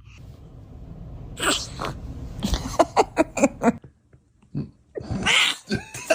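Sneezing: a sneeze about one and a half seconds in, then a quick run of short sharp puffs, and another sneeze a little before the end.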